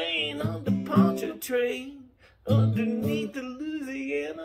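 A man singing while strumming an acoustic guitar, with a short break in both about two seconds in.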